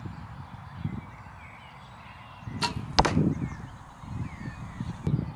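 An arrow from a recurve bow hisses in and strikes the archery target with a sharp thud about three seconds in.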